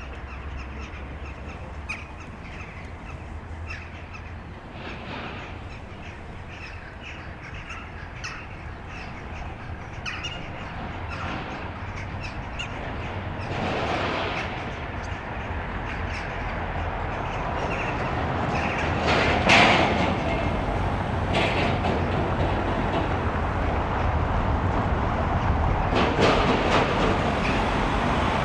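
Road traffic: vehicle engine and tyre noise that grows steadily louder from about halfway through, over a constant low rumble. Small birds chirp in the first half.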